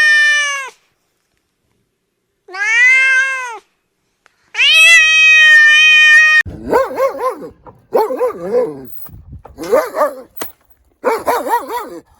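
Domestic cat meowing three times, the third meow long and drawn out, each with a clear rising-and-falling pitch. From about six seconds in, another animal takes over with a quick run of short, high calls in clusters.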